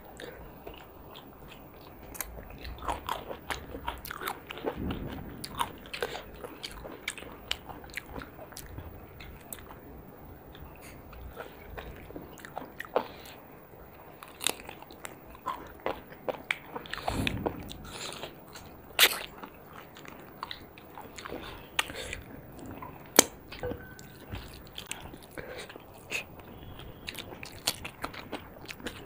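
Close-miked eating sounds from two people eating curry and rice by hand: chewing, wet mouth smacks and occasional crunches, with irregular sharp clicks and a few louder smacks in the second half.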